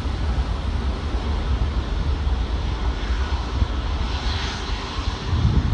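Jet airliner engines running, a steady low rumble under a broad hiss, with the hiss growing brighter about four seconds in and the rumble swelling near the end.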